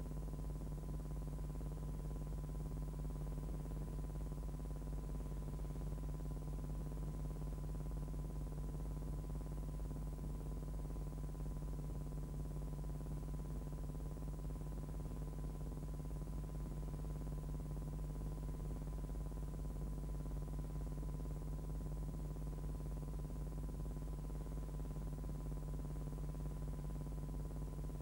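Steady low electrical hum with an even hiss and a faint thin high tone, unchanging throughout: the background noise of a transfer of soundless archive film.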